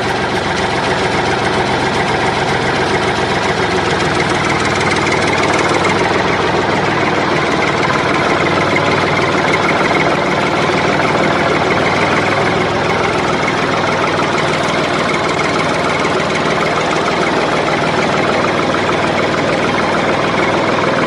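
Truck engine running steadily at a low idle, a laid-over engine sound effect rather than anything the plastic toy truck itself could make.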